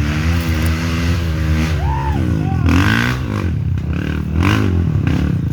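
Four-stroke trail motorcycle engines running under load, their pitch rising and falling repeatedly as the throttle is worked, around two and three seconds in and again past four seconds.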